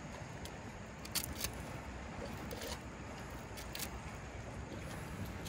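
A utility knife and pliers scraping and clicking against a small fish on a concrete rail as it is cut open. There are a handful of short, sharp clicks, irregularly spaced, over steady outdoor background noise.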